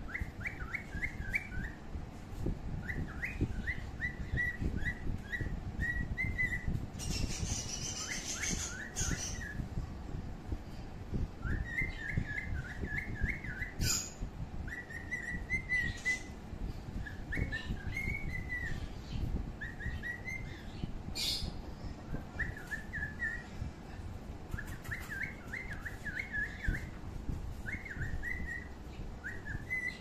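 Small birds chirping in short trilled phrases, repeated every second or two, over a low rumble.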